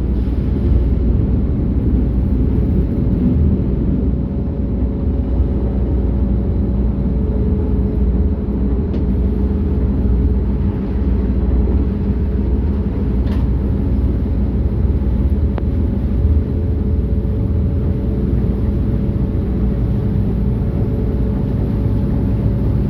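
Ferry's engine running steadily: a loud, unbroken low drone with a couple of steady hums over it, and two faint ticks partway through.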